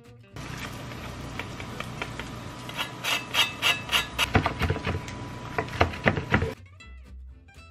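Chef's knife cutting through a seared seitan steak and knocking down onto a wooden cutting board, a quick run of sharp knocks in the second half.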